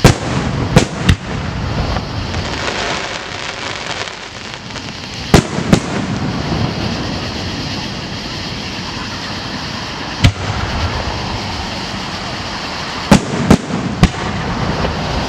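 Aerial firework shells bursting: about nine sharp bangs, several coming in quick pairs or threes (three at the start, two about five seconds in, one around ten seconds, three near the end), over a steady rumble of noise between them.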